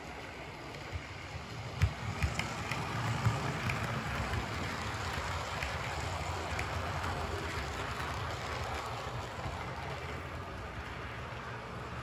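Model train running past on the layout track: a steady low rumble of wheels on rail that swells as the coaches go by and eases toward the end, with a few sharp clicks about two to three seconds in.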